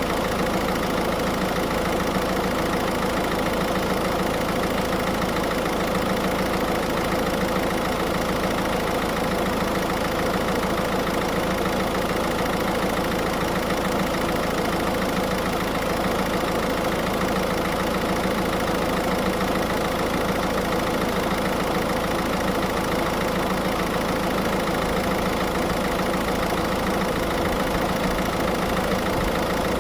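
Car engine idling steadily, with the air-conditioning compressor engaged, while refrigerant is charged into the system.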